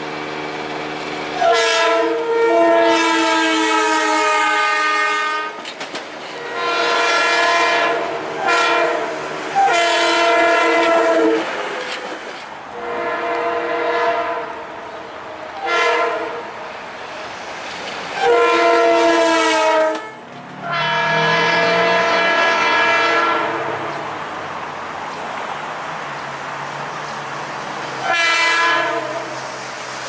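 A Metro-North train's air horn sounds a chord of several notes in a string of long and short blasts, the warning for a road grade crossing. The rumble of the train running on the rails follows, and another horn blast comes near the end.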